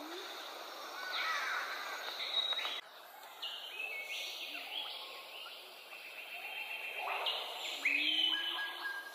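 Several birds calling over each other, with short whistled notes and upward-sweeping calls. The sound breaks off abruptly about three seconds in and the calling picks up again.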